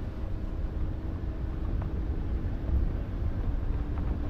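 Car on the move: a steady low rumble of engine and road noise, with a faint steady hum over it.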